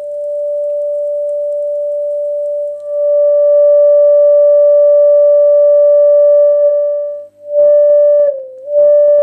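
Home-made test-tube thermoacoustic engine (glass tube with a steel-wool stack and a wet-wipe heat sink, heated at the stack) singing a steady, loud, high-pitched pure tone as the heat drives the air inside it to oscillate. The tone swells in over the first second, gets louder about three seconds in, cuts off about seven seconds in, then sounds in short on-off stretches with small dips in pitch.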